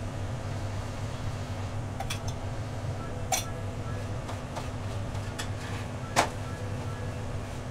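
A metal spatula scrapes and clacks against a flat tawa as a roti is lifted and flipped: a handful of short sharp clicks, the loudest about six seconds in, over a steady low hum.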